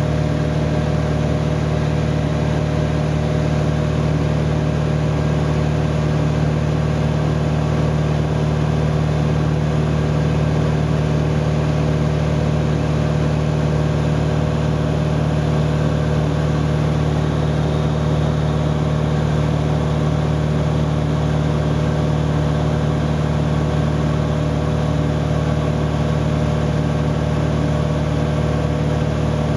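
Airplane cabin noise in flight: a steady drone of engines and rushing air, with several steady hum tones under it.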